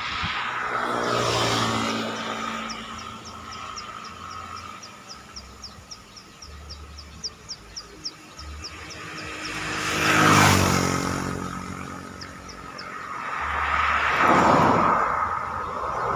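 Road vehicles passing by with their engines running, three in turn; the loudest passes about ten seconds in. Between the first two passes comes a quick run of short, high chirps, about four or five a second, lasting several seconds.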